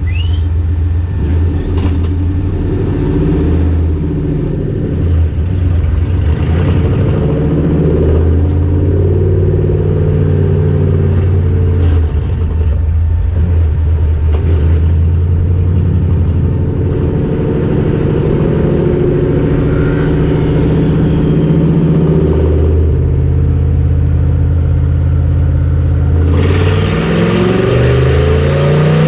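Car engine running under load while driving, its pitch holding and then stepping up and down every few seconds, with revs climbing near the end.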